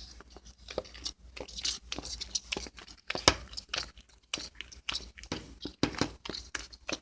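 Homemade glue slime being stirred in a bowl with a spatula, giving irregular sticky clicks and squelches.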